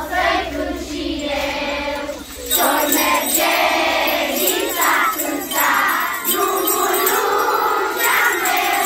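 A group of children singing a Romanian Christmas carol (colindă) together, with jingle bells shaking along from about two and a half seconds in.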